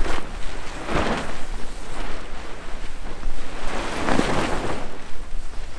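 Wind rumbling on the microphone over the rush of the sea beside a sailing catamaran running under spinnaker, swelling in gusts about a second in and again around four seconds in.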